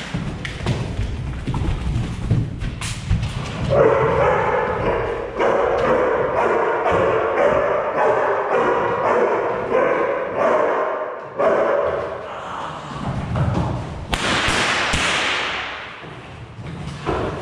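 Thuds and scuffs on a bare wooden floor as a dog jumps at and grips a person during bite work, with the dog barking and growling through the middle stretch.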